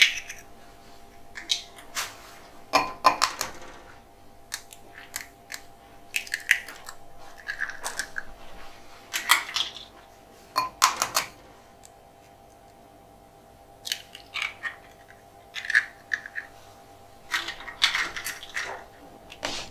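Eggs being cracked and separated by hand over a small glass bowl: scattered sharp taps and clicks of eggshell against glass and of shell halves being handled, with a pause in the middle.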